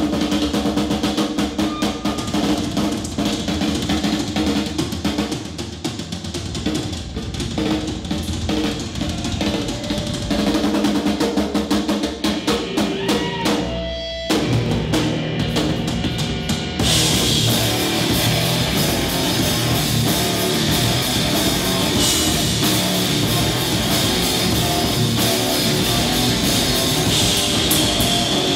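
Live rock band playing, with the drum kit to the fore over sustained bass and guitar notes. The music breaks off briefly about halfway through, then comes back in louder and fuller.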